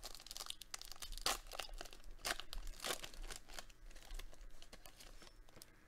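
A foil trading-card booster pack crinkling as gloved hands tear it open, in a run of irregular crackles that are sharpest in the first half.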